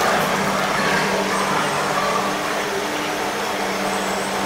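A steady machine hum in two low tones over the general din of a railway station's underground passage.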